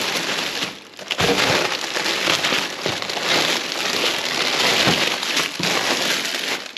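Plastic salad and vegetable bags crinkling and rustling as they are rummaged through by hand, with a brief lull just before a second in.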